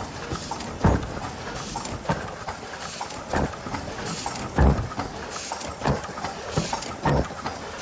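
Automatic three-layer disposable face mask making machine running: its mechanism knocks with a sharp clack about every second and a quarter, over a steady hiss.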